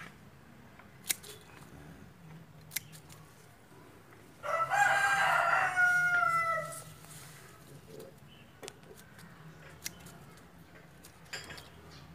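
A rooster crows once, starting about four and a half seconds in and lasting about two seconds, its pitch falling at the end. A few faint sharp snips of pruning shears cutting side shoots off chrysanthemum stems come before and after it.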